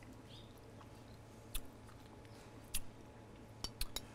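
Quiet eating sounds of a person chewing a mouthful of mashed potatoes: a few soft, sharp mouth clicks scattered through, several close together near the end.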